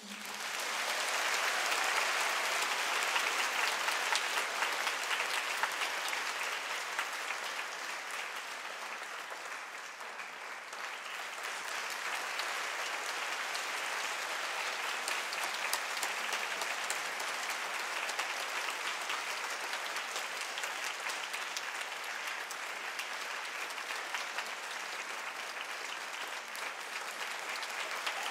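Audience applauding at the end of a ballet number: clapping breaks out as the music stops, swells within the first couple of seconds and holds steady.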